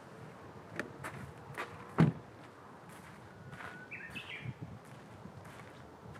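A few sharp knocks and clunks, the loudest about two seconds in, with a brief high chirp near the middle.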